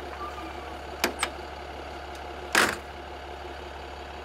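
Nurol Yörük 4x4 armoured vehicle's 6.8-litre, 350 hp engine idling with a steady low hum, the gearbox in neutral. Two light clicks come about a second in, and a louder short knock about two and a half seconds in.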